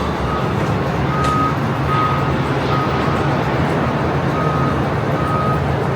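A vehicle's reversing alarm beeping, one high tone repeated about once a second with a short break midway, over a steady rumble and hiss.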